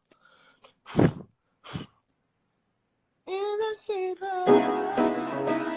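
Piano playing with a man's singing voice. After two brief thumps and a short pause, a sung phrase starts about three seconds in, and piano chords come in and are held from about four and a half seconds.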